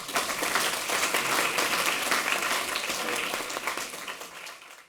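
Audience applauding, many hands clapping at once, fading near the end and then cutting off abruptly.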